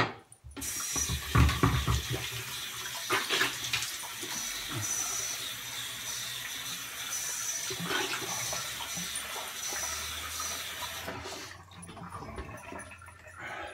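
Bathroom sink tap running steadily, with splashes as cupped hands bring water to the face to rinse off shaving lather after the shave. The water stops about eleven seconds in.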